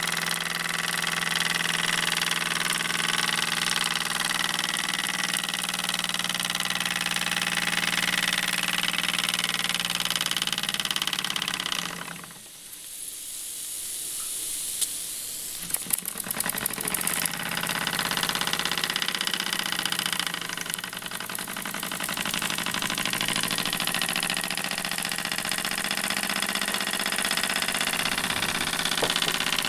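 Jensen 60 model steam engine running steadily with a mechanical hum. About twelve seconds in the sound drops away sharply, a few clicks follow, and over the next few seconds it builds back up to a steady run.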